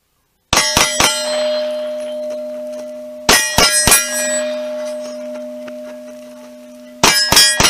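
Three strings of three quick 9mm pistol shots from a Glock 48, about a third of a second apart, starting about half a second, three seconds and seven seconds in. Each string sets the steel targets ringing, a tone that hangs on and fades between strings: the ring is the audible sign of hits.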